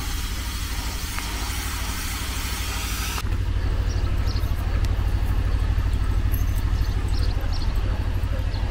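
Wind buffeting the microphone with a fluttering low rumble over an even outdoor hiss. The hiss drops away abruptly about three seconds in, leaving the wind rumble and a few faint high chirps.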